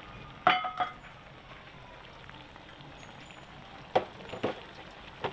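A pot of braised chicken in soy-and-pineapple broth cooking on the stove, a steady hiss. A sharp ringing clink about half a second in and two more knocks near the end.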